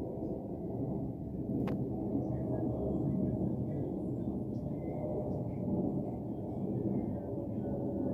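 Steady, distant low rumble of a Boeing 787-9 Dreamliner's jet engines passing high overhead, with a single sharp click a little under two seconds in.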